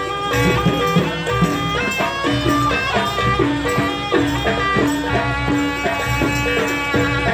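Live Javanese gamelan music playing continuously: drum strokes and gongs under a held, reedy melody line.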